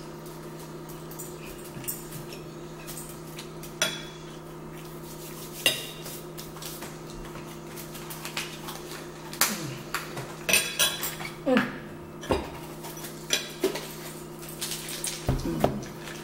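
Metal forks clinking and scraping against dinner plates during a meal, over a steady low hum. A few separate clinks in the first half, then a busier run of them from about halfway through.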